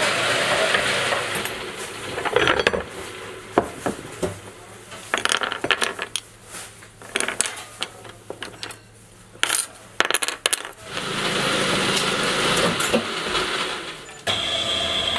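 Small metal motor parts clicking and clinking as they are handled by hand, in irregular sharp taps over a steady workshop hum. About a second before the end, a steady machine hum cuts in abruptly.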